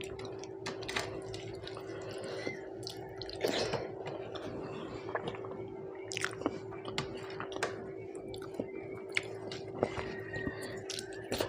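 A person chewing a meal of rice and fish curry, with irregular wet smacks and clicks of the mouth over a steady low hum.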